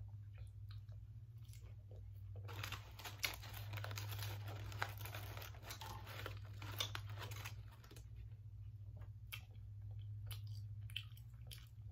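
Paper fry bag crinkling and rustling for several seconds as fries are tipped out onto the table, followed by scattered soft clicks of chewing and handling food, over a faint steady low hum.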